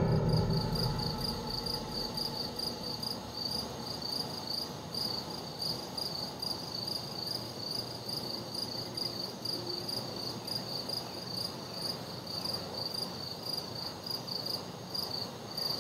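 Night forest ambience in a film sound mix: crickets chirping in a steady, even run of short high chirps over a faint low hum, while the film score dies away in the first couple of seconds.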